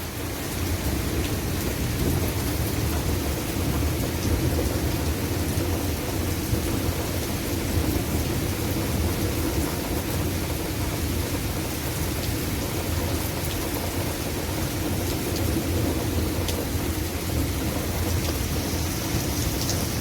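Continuous low rumbling roar from a severe thunderstorm overhead, steady with no distinct thunderclaps, over light rain pattering. The winds at the ground are calm, so the roar comes from the storm aloft; it sounds like a war zone.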